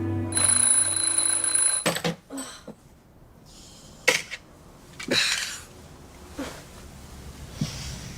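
A bell rings steadily for about a second and a half, the sound of an alarm clock or old-style phone bell, then cuts off abruptly. A few short knocks and soft rustles follow.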